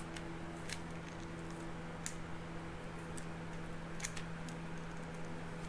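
A handful of light metallic clicks and ticks from a timing chain being handled and fitted over the cam sprockets of a VW 12-valve VR6 engine, over a steady low hum.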